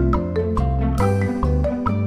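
Background music: a light tune of short, ringing struck notes over a bass line that changes every fraction of a second.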